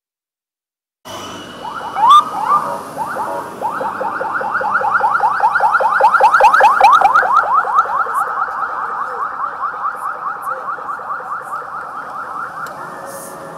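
Police escort siren in yelp mode: two short rising whoops about a second in, then a fast run of rising sweeps, about four to five a second. It grows louder and then fades as the escort vehicles pass.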